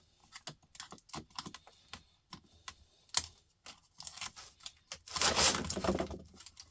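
Small plastic and metal laptop parts being handled and picked at during a teardown: a run of light clicks and taps, with a denser stretch of rattling and scraping about five seconds in.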